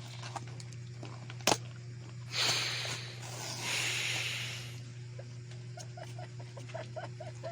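Packaging being handled during an unboxing: one sharp click, then two stretches of crinkling rustle lasting a couple of seconds in all.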